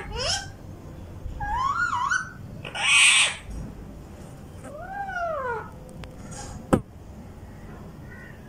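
Caged ringneck and Alexandrine parakeets calling to each other in separate whistles. There is a rising whistle at the start, a wavering call a little later, a loud harsh squawk about three seconds in and an arched whistle that rises and falls around five seconds. A single sharp click comes near seven seconds.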